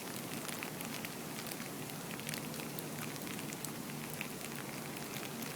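Freezing rain falling steadily, a constant patter-hiss flecked with many small ticks of ice hitting surfaces.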